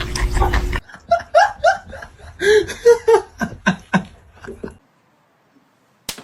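A loud rushing burst of noise lasting under a second, then a few seconds of people laughing in short bursts that cut off abruptly, and a single sharp click near the end.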